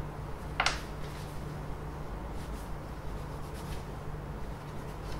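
Small parts handled at a workbench: one sharp click about half a second in, then a few faint ticks over a low steady hum.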